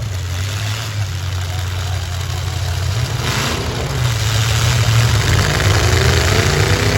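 Several stock V8 demolition derby car engines running loudly together. A short burst of noise comes a little over three seconds in. Near the end one engine revs up, its pitch rising.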